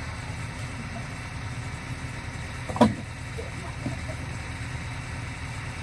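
Engine idling low and steady, with one loud sharp clunk of a heavy stone landing in a truck's cargo bed near the middle.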